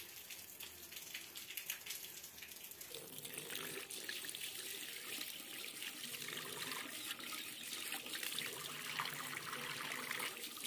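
Tap water running into a white ceramic washbasin and splashing over a bunch of green stalks held under the stream to rinse them; the steady running starts about three seconds in.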